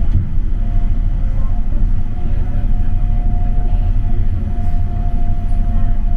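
Rubber-tyred Mitsubishi Crystal Mover C810A light-rail car running along its guideway, heard from inside the car: a steady low rumble, with a steady whine that comes in about half a second in.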